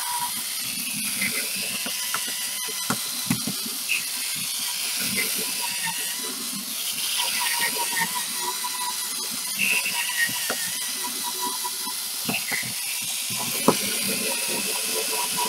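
Small USB-rechargeable cordless screwdriver-drill with a metal drill bit, running steadily as it grinds away the metal stud riveting a Filofax ring mechanism: a continuous hiss with an on-and-off whine and scattered clicks.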